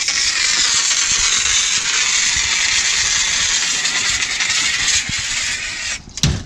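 Fire extinguisher discharging in a steady, loud hiss, spraying out a fire started by a smoke grenade; the hiss cuts off abruptly about six seconds in and is followed by a single thump.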